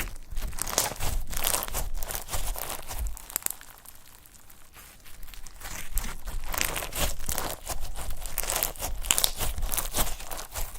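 Slime being squished and kneaded by hand: dense crackling and clicking, in two spells with a quieter pause around the middle.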